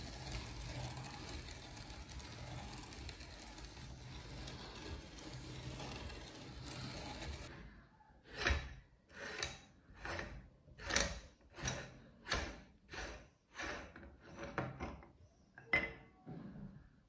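Meat grinder grinding M&M's candy, a steady rough churning noise that cuts off suddenly about seven and a half seconds in. After it come about a dozen short metal scrapes, roughly one every 0.7 s, as the grinder's threaded front ring is unscrewed.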